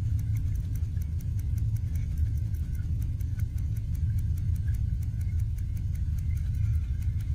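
Underwater noise picked up by a submerged camera: a steady low rumble with a quick, regular ticking over it.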